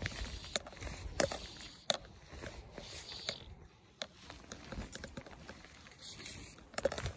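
Metal fishing forceps slapping against the phone that is filming, a dozen or so irregular sharp clicks and taps over a low rumble.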